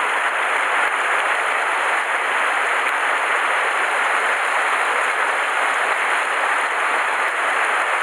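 Mountain stream rushing over a small rocky cascade into a pool: a steady, unbroken rush of water.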